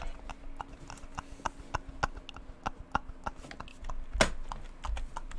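Light, irregular clicking and tapping of computer keys over a faint steady hum, with one louder knock about four seconds in.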